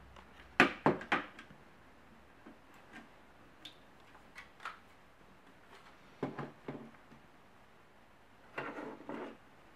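Hard plastic clicks and knocks from the opened case of a Sony NSZ-GS7 media player being handled and fitted back together: three sharp clicks about half a second to a second in, a cluster of knocks around six seconds and another near nine seconds, with lighter ticks between.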